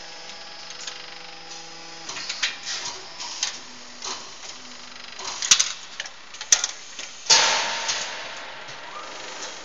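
Automatic hydraulic cold-extrusion press line running: a steady machine hum, then a run of metallic clicks and clanks with two sharp metal knocks near the middle. About three-quarters of the way through a loud hiss sets in and fades over a couple of seconds.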